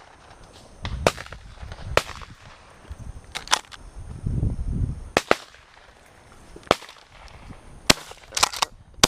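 Shotguns firing at doves from several hunters around the field: about a dozen separate shots of differing loudness, some in quick pairs.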